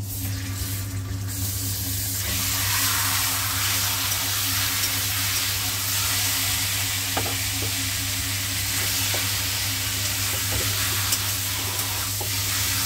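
Marinated chicken pieces sizzling as they go into hot mustard oil in a kadhai. The sizzle builds over the first two seconds and then holds steady, with a spoon scraping and stirring the pieces and a few light clicks.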